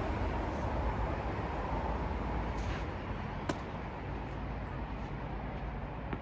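Steady low rumble of outdoor background noise, with one sharp pop of a tennis ball being struck about halfway through and a fainter pop near the end.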